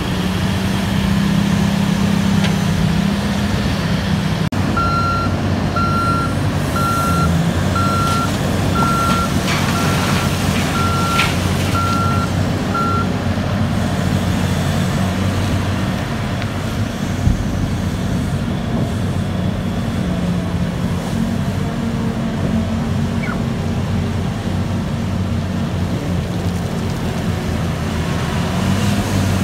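Heavy diesel engines of a mining front shovel excavator and haul truck running steadily under load. A reversing alarm beeps about once a second for some eight seconds in the first half, and a single heavy clunk sounds a little past the middle.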